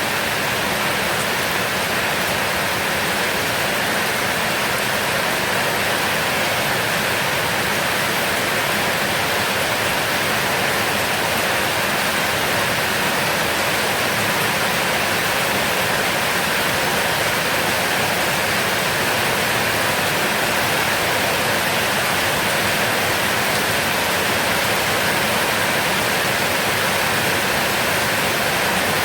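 Heavy rain falling as a steady, even downpour.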